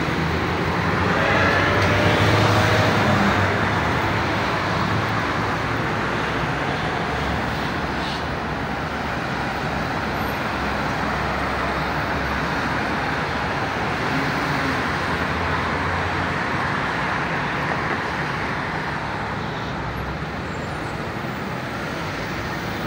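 Road traffic: cars, taxis and minibuses driving past in a steady rush. One vehicle's engine rises in pitch as it pulls away about two seconds in, the loudest moment.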